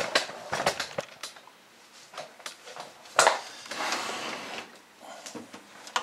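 A metal computer tower case being handled and turned around on a desk: scattered clicks and knocks, with a sharp knock about three seconds in followed by a second or so of scraping as the case slides.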